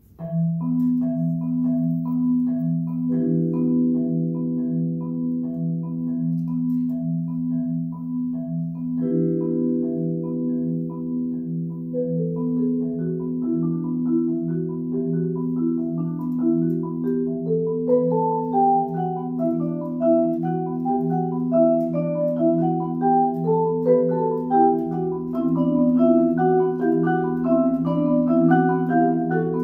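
Marimba and vibraphone duo starts playing: a steady repeated low figure, held chords coming in a few seconds later, and from about twelve seconds in rising and falling melodic runs higher up.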